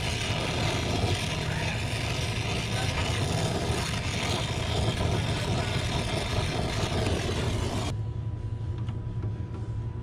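Brazing torch flame hissing steadily at the capillary tube joint as it is brazed, then shut off abruptly about eight seconds in. A steady low hum continues underneath.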